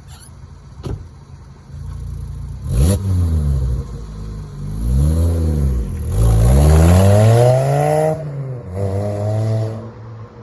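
Volkswagen Rabbit engine being revved in several blips, its pitch climbing and falling each time, with the longest and loudest rev in the middle, then settling back toward idle near the end. A short click comes about a second in.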